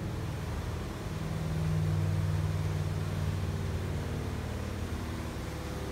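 A steady low motor hum with a few pitched lines, growing louder about a second and a half in and easing off after about three seconds.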